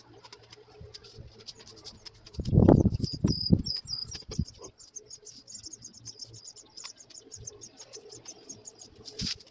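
Hedge branches and brambles rustling and crunching as they are cut and pulled, loudest about two and a half seconds in, with scattered snaps. Through the second half a small bird gives a long run of quick, high ticking chirps.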